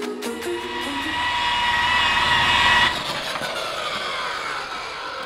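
Rotary polisher with a wool pad running on car paint with a steady whine, then switched off about three seconds in, its whine falling in pitch as the pad spins down.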